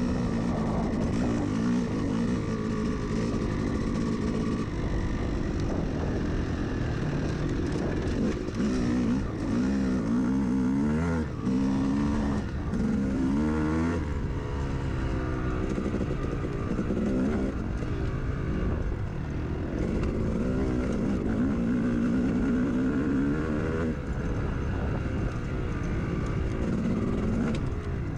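Dirt bike engine being ridden off-road, running without a break while the revs climb and fall again and again with the throttle.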